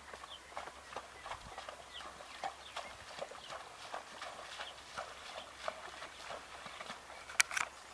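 A gelding's hooves striking the ground in a quick, uneven clip-clop, about three or four strikes a second, with two much louder hard strikes close together near the end.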